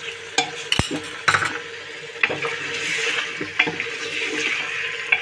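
Pieces of mutton trotters clinking and knocking against an aluminium pressure cooker as they are turned over in hot oil, with a soft sizzle and a steady hum underneath.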